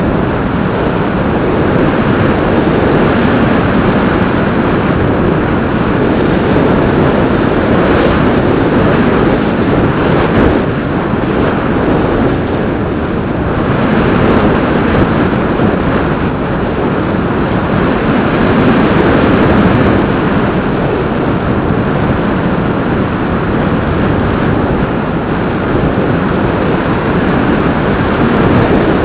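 Steady, loud rush of airflow and propeller noise picked up by the onboard camera of a Bixler 2 radio-controlled plane in flight, with no distinct pitch and only small swells in level.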